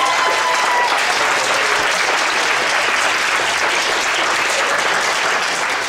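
A class of students applauding: steady, dense clapping, with one voice holding a call over it for the first second.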